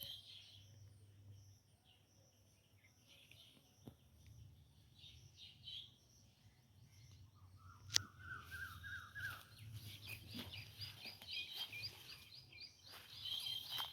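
Several birds calling and chirping, with a quick run of notes about halfway through and fast repeated chirps near the end. A single sharp click about halfway through.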